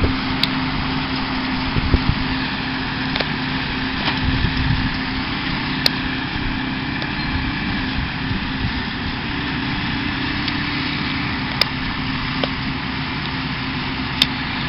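Farm tractor engine running at a steady pitch during hay work, with a few sharp clicks.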